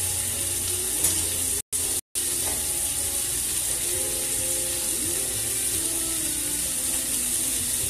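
Pork chops frying in a pan, a steady sizzle, with faint music underneath. The sound cuts out completely twice, very briefly, about two seconds in.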